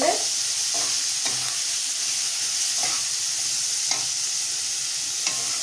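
Onions frying in hot oil in a kadai over a high gas flame, a steady sizzle, with about five short stirring strokes against the pan.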